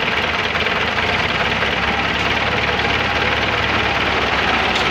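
Diesel farm tractor engine running steadily while it hauls a loaded trolley of soil.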